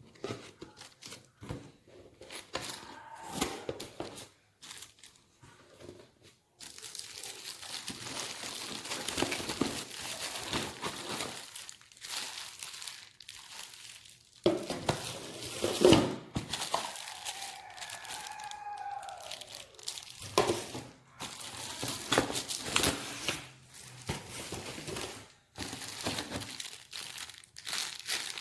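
Packaging being handled and unwrapped: irregular crinkling and rustling with occasional tearing and sharp knocks, in short bursts with brief pauses.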